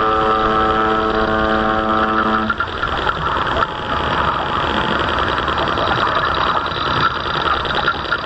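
A horn sounds one long steady note that stops about two and a half seconds in, over the steady running of the radio-controlled model fishing boat's motor; the motor then runs on alone with a fine rapid ticking.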